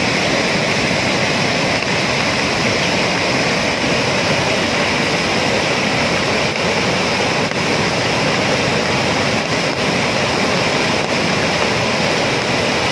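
Floodwater surging over a submerged low causeway, a loud, steady rushing of fast-flowing river water in spate.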